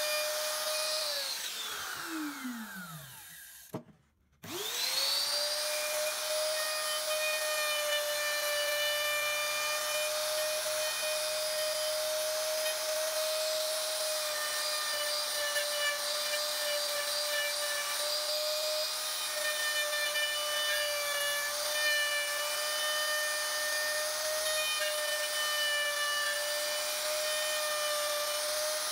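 Electric router motor whining at a steady high pitch as it cuts a relief carving into a wooden panel. About a second in it is switched off and winds down in falling pitch until it goes quiet. Just after four seconds it is switched back on, spins up quickly to full speed and runs steadily.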